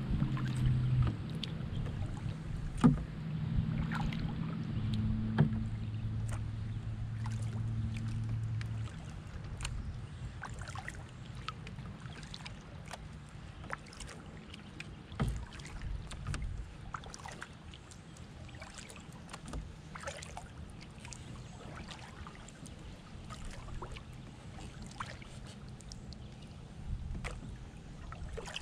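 Canoe being paddled on a river: water dripping and splashing off the paddle, with many small sharp ticks and knocks. A low steady hum runs for about the first nine seconds, then stops.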